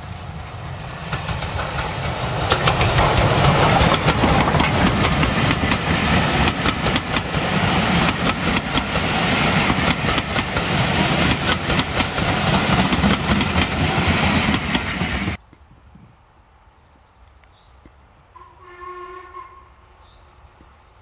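A steam-hauled passenger train passing close by: a loud rumble with wheels clicking over the rail joints, building about two seconds in and cutting off suddenly about fifteen seconds in. Near the end, a distant steam locomotive whistle sounds once, briefly and faintly.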